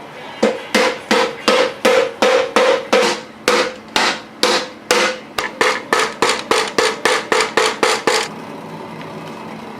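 A hammer knocking repeatedly, about three strikes a second and coming faster in the second half, each strike ringing; the knocking stops about eight seconds in. It is the sound of bearings being knocked into a bike frame.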